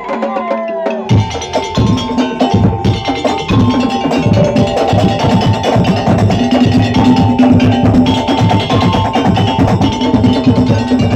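Madurese ul-daul ensemble playing: fast wooden and drum beats under steady pitched melody tones. The full beat with low drum strokes comes in about a second in.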